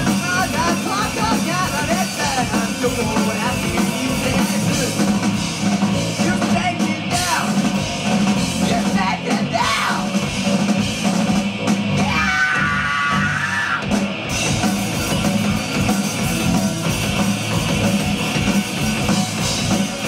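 Rock band playing live: drum kit, electric guitar and bass guitar, with a lead vocalist singing over them.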